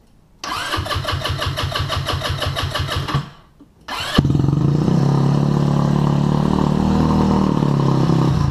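150cc GY6 scooter's single-cylinder four-stroke engine cranked on its electric starter for about three seconds without catching, then cranked again and starting about four seconds in, running at a high idle. The carburetor has just been refitted with a new main jet and is filling with fuel.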